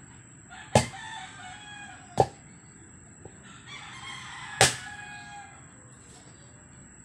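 Axe blows on a log while splitting firewood: three sharp strikes at about one, two and four and a half seconds in. A rooster crows twice between the strikes.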